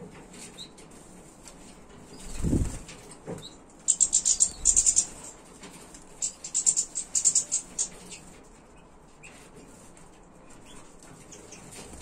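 Small finches in an aviary, European goldfinches and siskins among them, giving rapid high twittering calls in two bursts, about four seconds in and again from about six to seven and a half seconds. A brief low whoosh about two and a half seconds in.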